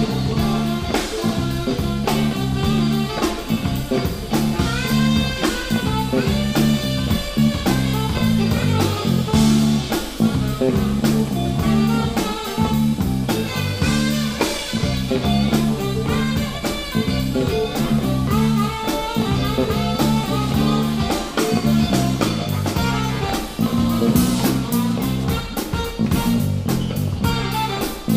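Live funk band playing an instrumental: saxophone and electric guitar over electric bass, drum kit and keyboards, with a steady, repeating bass line.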